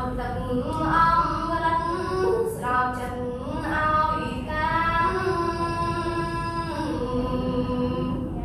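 A girl's voice singing unaccompanied, holding long notes that glide between pitches: a Khmer poem chanted to a melody.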